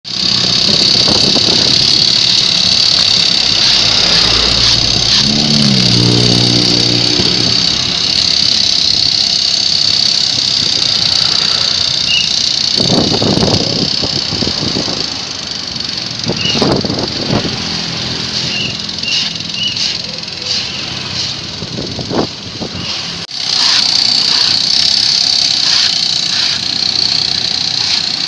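Backpack brush cutters with four-stroke Honda GX engines running, their nylon line cutting grass with a steady high-pitched whine that fades for several seconds midway and comes back near the end. Cars and motorcycles pass on the road alongside.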